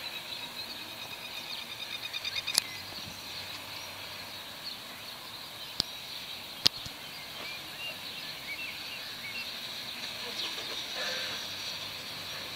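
Quiet outdoor ambience with birds chirping: a rapid high trill over the first couple of seconds, then scattered faint chirps. A few sharp clicks stand out, loudest around the middle.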